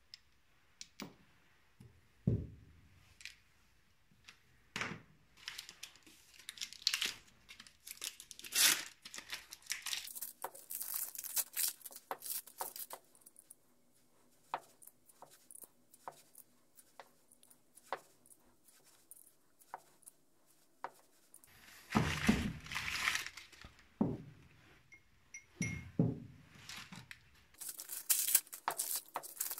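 Brown wrapping paper crinkling and tearing as steel valve guides and valves are unwrapped by hand. Between the bursts of crinkling come small metal clicks and a few dull thunks as the parts are set down on a cloth-covered bench.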